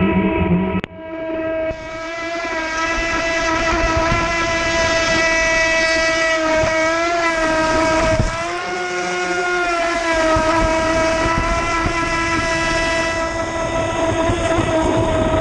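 Onboard sound of an AquaCraft Minimono RC boat's electric motor running at speed: a steady whine that dips and comes back up in pitch twice, about seven and eight and a half seconds in, over the hiss of water rushing along the hull. The sound drops out briefly about a second in.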